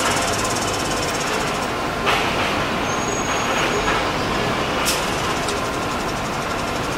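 Steady hissing industrial din at a coal washery loading point, with a JZ 25-30 0-6-0 narrow gauge steam locomotive standing beneath it and steam escaping from its cylinders. Two sharp knocks, about two and five seconds in.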